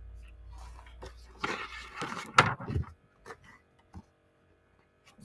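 Paper rustling as a picture book's page is turned and handled, with a sharp tap about two and a half seconds in and a few faint clicks after.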